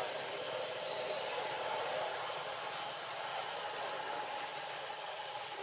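Steady, even hiss of outdoor background noise, with no distinct event.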